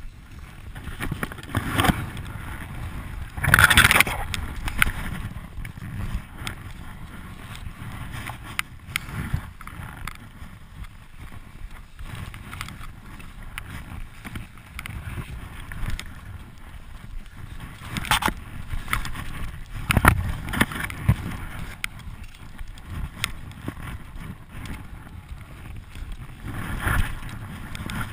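Skis running through deep powder snow in tight trees: a continuous rough swishing hiss and rumble. Several louder scraping knocks break in, the strongest about four seconds in and others near eighteen, twenty and twenty-seven seconds.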